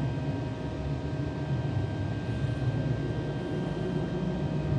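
Steady low background hum with a few faint constant whining tones above it; no clicks or snaps.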